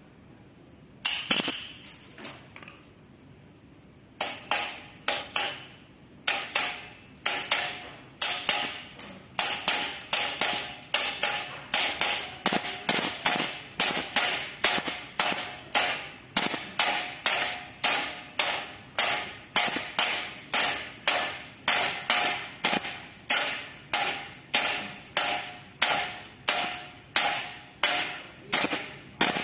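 A small hammer tapping a bearing and steel sleeve into a flanged aluminium housing. A few scattered sharp taps come first, then from about six seconds in a steady run of about two metallic strikes a second, each with a short ring.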